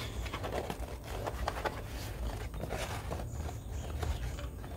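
Kraft-paper-wrapped box being handled: scattered rustles, light taps and scrapes of the paper against the hands and table as the fabric ribbon is pulled loose, over a low steady background rumble.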